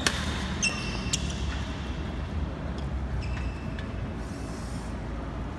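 A badminton racket strikes the shuttlecock once, with a sharp crack right at the start, followed by a few short, high squeaks of court shoes on the hall floor, over a steady low hum.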